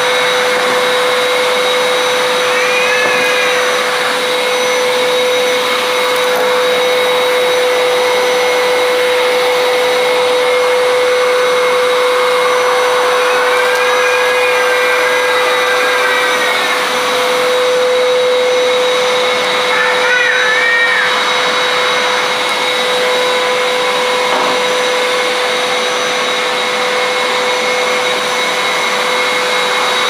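Prestige Typhoon 05 1200-watt wet-and-dry vacuum cleaner running steadily with an even whine, drawing air through its floor nozzle over a tiled floor.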